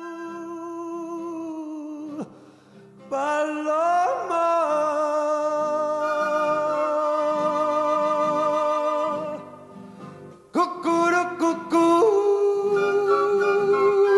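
Background music: a slow piece of long held notes over a low repeating accompaniment, dropping out briefly about two seconds in and again about ten seconds in.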